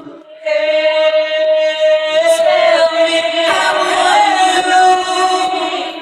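AI-separated a cappella vocal stem: wordless singing in layered voices, holding long notes that come in about half a second in, with the pitch bending briefly near the middle.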